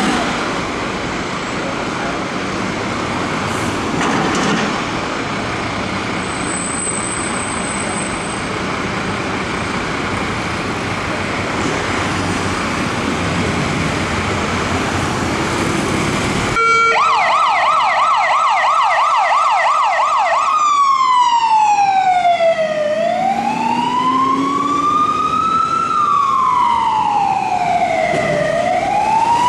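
Steady traffic and diesel engine noise, then from about 17 s a fire engine's electronic siren: a fast warbling yelp for about four seconds, switching to a slow wail that falls and rises twice.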